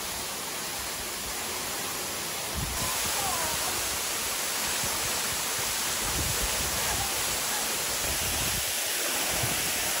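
Steady rushing of a forest waterfall, growing louder and brighter about three seconds in.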